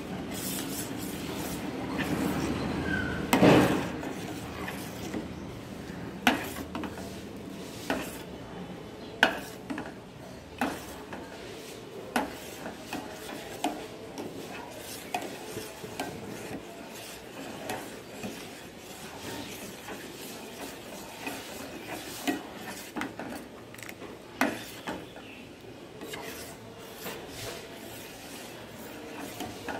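A steel ladle stirring thickening payesh (milk and rice) in a stainless steel pot, scraping the bottom with irregular clinks against the metal about once a second. There is one louder knock about three seconds in.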